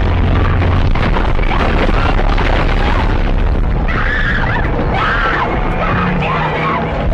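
Loud, continuous rumbling din of destruction, with a deep boom at the start. Several people start screaming about four seconds in.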